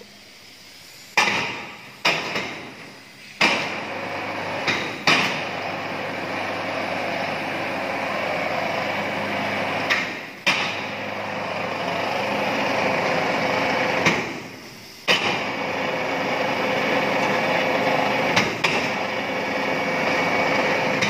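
A cotton draw frame breaker starting up and running. Over the first few seconds it comes on in a few sudden jolts, then settles into a steady, loud mechanical clatter and hum from its drafting rollers and coiler. The level drops twice for a moment near the middle.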